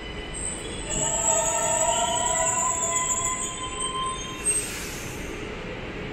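SNCB/NMBS intercity electric train moving along an underground platform, its wheels squealing in several high, slowly falling tones over a steady rumble. A short hiss of air comes about four and a half seconds in.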